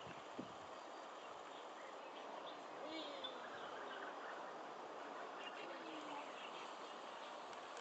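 Faint, steady outdoor background noise with a few faint, short, high chirps scattered through it, one of them about three seconds in.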